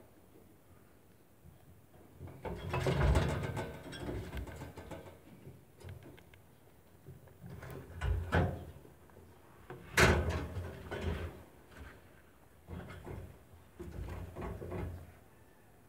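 Rabbits in a wire cage rustling through hay and long green stems as they feed, with knocks and rattles against the cage, in several bursts; the sharpest knock comes about ten seconds in.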